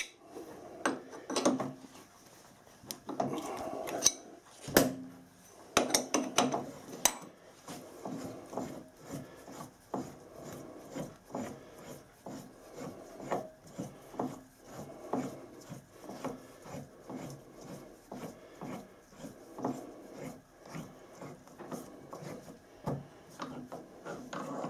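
A button die in a tailstock die holder, turned by hand, cutting an external thread on a stainless steel stud held in a lathe collet chuck. Irregular scrapes and clicks as the holder is worked round in short turns, louder in the first several seconds.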